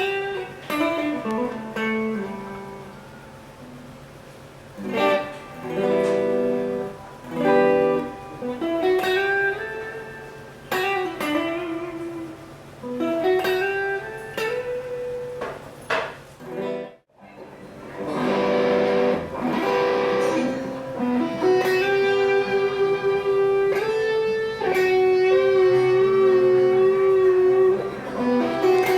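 Electric guitar, a PRS SE Custom on its 85/15 S neck pickup, played through a Mesa Rectoverb 25 amp. It plays single-note melodic lines with bends and slides. The playing breaks off suddenly for a moment about halfway, then carries on with longer held notes.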